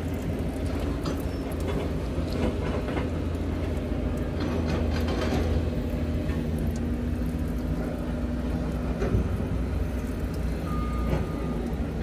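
Steady low engine rumble with scattered light metallic clicks from a wrench on the fuel fittings. A high-pitched beeping tone starts near the end.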